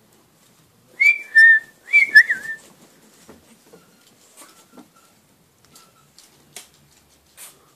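A person whistling two short calls about a second apart, each a high note dropping to a lower one, a call to the puppies. Faint scattered ticks and taps follow.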